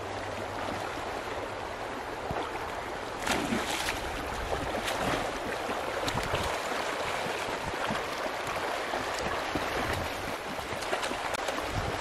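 Fast, muddy river water rushing steadily, with splashing from a person and a small dog wading and swimming through the current; the splashes come sharper and more often from about three seconds in.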